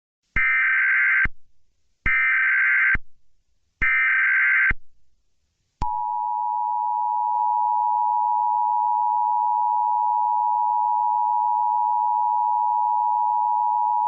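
Emergency Alert System tones opening an Emergency Action Notification: three short bursts of SAME digital header data, each about a second long, then the two-tone EAS attention signal held steady for about eight seconds.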